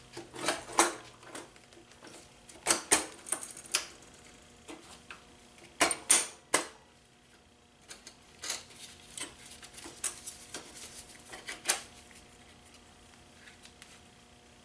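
Irregular metallic clicks and clinks of a motorcycle roller drive chain and rear-wheel hardware being handled as the chain goes back onto the sprocket. Louder clusters of clanks come in the first seven seconds, then lighter ticks.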